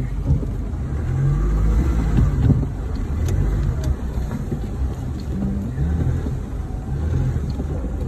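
Four-wheel-drive vehicle's engine running under load in slippery mud, heard from inside the cabin, its revs rising and falling as the driver works the throttle.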